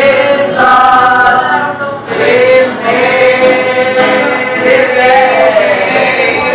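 Vocal music: voices singing long held notes that slide from one pitch to the next, choir-like.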